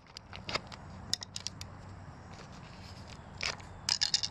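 Plastic bubble solar pool blanket crackling and clicking as it is handled, in scattered short crackles with a denser cluster near the end.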